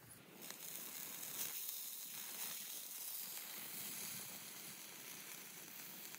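Food frying in a hot pan, a steady sizzle that comes in just after the start and cuts off abruptly at the end.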